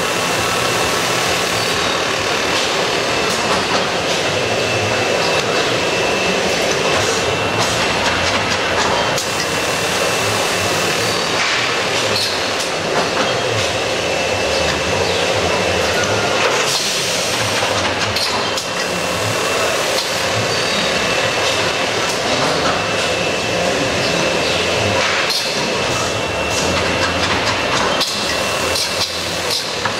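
Machinery of a seedling-tray seeding line running steadily: a continuous mechanical din with a thin high whine that drops out and returns, a low hum underneath, and scattered clanks and knocks.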